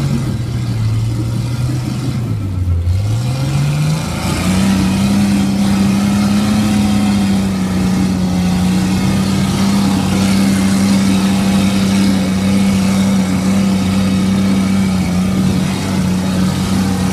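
Jeep Cherokee XJ-based rock buggy doing a burnout on bare rock: the engine dips briefly, then revs up sharply about four seconds in and is held at high, steady revs while the tyres spin in place.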